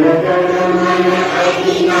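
A large group of schoolchildren singing a prayer together in unison, in a chant-like melody with long held notes.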